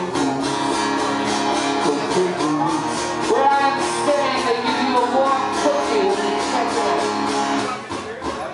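Live guitar music, strummed steadily with a singing voice carrying a melody over it. The music falls away near the end.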